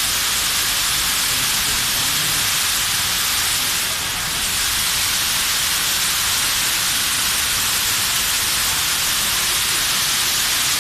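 Fire sprinkler head discharging water during a flow test: a steady hiss of spray hitting the plastic sheeting hung around it.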